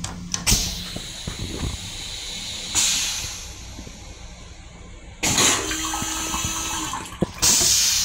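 Long Island Rail Road M7 railcar toilet flushing after its push button is pressed: a click or two, then a hiss, then loud rushes of water about three seconds in, again about five seconds in, and once more near the end. A brief steady hum sounds between the last two rushes as the stainless-steel bowl is rinsed and drained.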